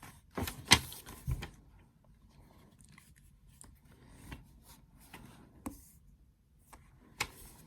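Handling sounds from a DJI Osmo Mobile 3 gimbal and its packaging: a few sharp clicks and knocks in the first second and a half and again near the end, with light rustling in between.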